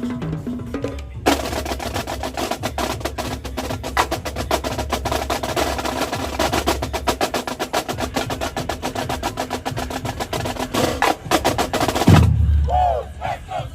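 Marching drumline playing a fast cadence: dense, rapid snare strokes over bass drums. About twelve seconds in there is a loud low hit, and the rapid drumming stops.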